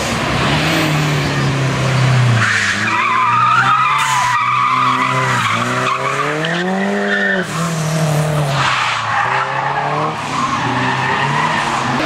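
A Subaru Impreza's engine revving hard through a drift, its pitch dipping, climbing to a peak about seven seconds in, then falling back. The tyres squeal on the tarmac from about two and a half seconds to about seven and a half seconds as the car slides sideways through the hairpin.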